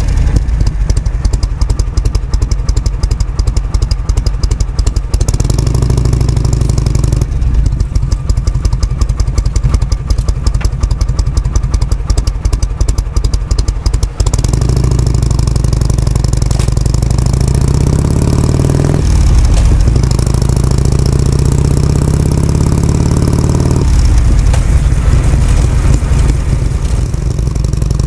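Harley-Davidson Shovelhead FLH's V-twin engine running: a pulsing, loping beat for about the first half, then a smoother sound whose pitch rises and falls as the engine speed changes.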